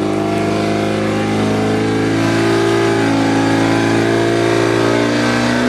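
Portable fire pump engine running at high revs, pumping water into the laid hose lines: a steady engine note whose pitch shifts slightly near the end.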